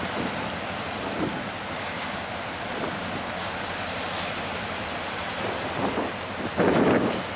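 Wind buffeting the microphone over choppy sea washing against rocks, a steady rush with a louder surge near the end.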